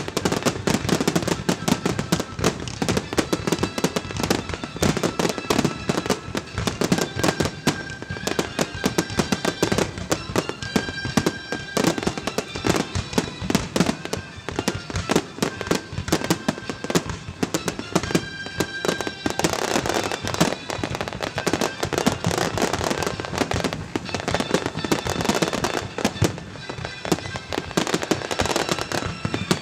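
Fireworks display going off continuously: a rapid, unbroken run of bangs and crackling from shells bursting overhead.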